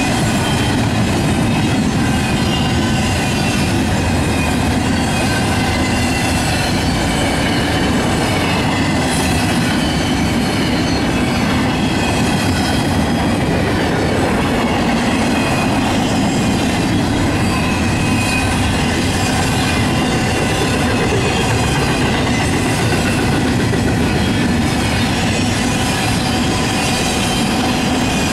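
Norfolk Southern intermodal freight cars (flatcars with semi-trailers and double-stack well cars) rolling past: a loud, steady rumble of steel wheels on rail, with thin high wheel squeal drifting in and out.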